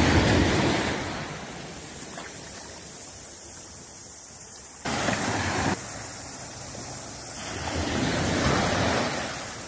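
Small waves washing up on a sandy beach, the rush swelling and fading, loudest at the start and again near the end. About five seconds in, a short burst of rushing noise starts and stops abruptly, like wind on the microphone.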